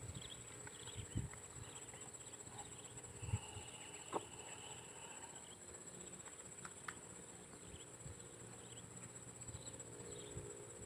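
Quiet swamp-forest ambience: a steady high-pitched insect drone with faint scattered chirps and one held note a few seconds in, plus a few soft knocks.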